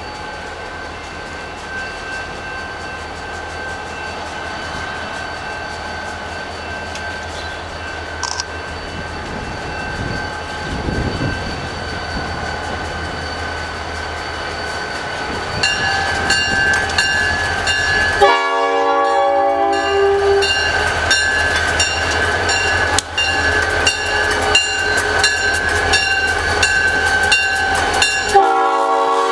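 New York, Susquehanna & Western freight train approaching and passing with its diesel locomotive running, growing louder. About halfway through the locomotive's multi-tone air horn sounds for around ten seconds, while the wheels click regularly over the rail joints.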